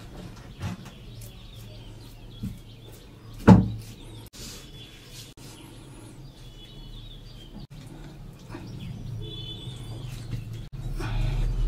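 A few dull knocks of a wooden cutting board and a prosthetic hook as a spring roll wrapper is folded, the loudest about three and a half seconds in, over a low hum that grows toward the end, with a few faint high chirps.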